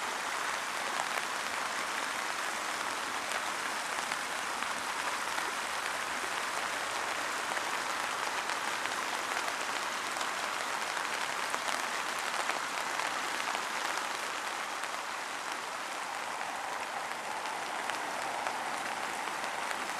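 Steady rushing hiss of a shallow stream running over stones and small riffles, with rain falling.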